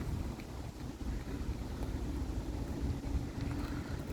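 Diesel engine running steadily: a low rumble with a faint steady hum.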